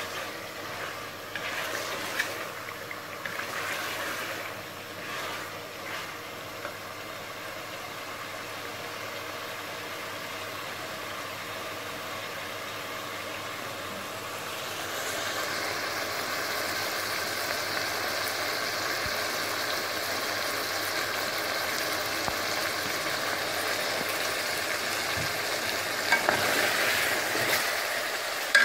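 Chicken pieces frying in oil and spices in a steel pot (the bhuna stage of a chicken pulao), sizzling steadily, with the sizzle growing louder about halfway through. A wooden spoon stirs and scrapes the pot several times in the first few seconds, and knocks against it a few times near the end.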